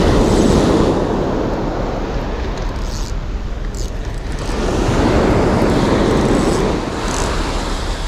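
Surf breaking and washing up the beach in two surges, about a second in and again around five seconds in, over a steady rumble of wind on the microphone.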